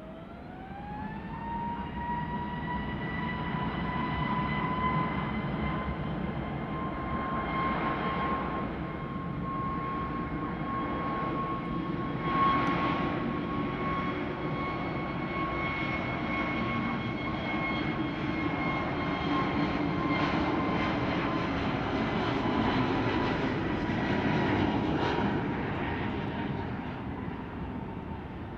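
Airbus A320neo's CFM LEAP-1A jet engines spooling up on the landing roll: a whine that rises over about a second and a half, then holds steady over a rushing noise and eases off near the end.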